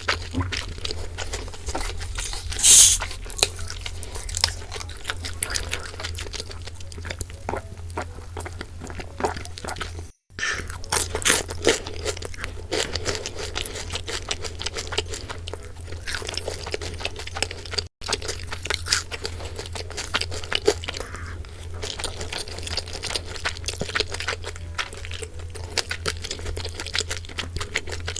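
A person eating boneless seasoned fried chicken, crunching and chewing, with one louder crunch about three seconds in. The sound drops out briefly twice where clips are cut together.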